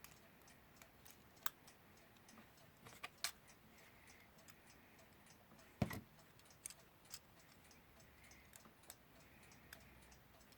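Small, irregular clicks and taps of tools and parts on a Westclox Baby Ben alarm clock movement being reassembled by hand, with one louder knock about six seconds in.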